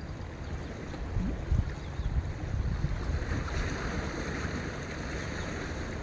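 Wind buffeting the microphone in irregular low gusts, over a steady hiss of sea and wind that swells for a couple of seconds about halfway through.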